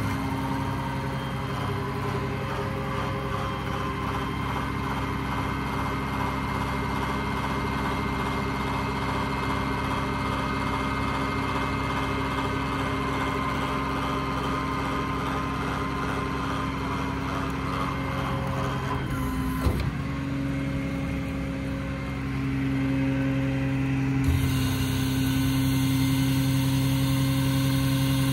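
Ram 5500's Cummins 6.7-litre inline-six diesel running while its hydraulics power the IMT 3820 crane: a steady hum with a whine. There is a brief click just before 20 seconds in, and about 24 seconds in the sound steps up and gets louder.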